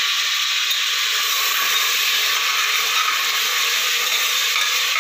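Sliced onions sizzling steadily in hot oil in a pressure cooker pan as they are stirred, frying to brown.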